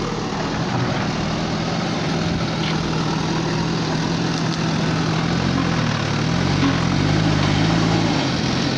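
JCB backhoe loader's diesel engine running steadily as the machine digs soil. Past halfway through, the engine pitch wavers up and down and it gets slightly louder.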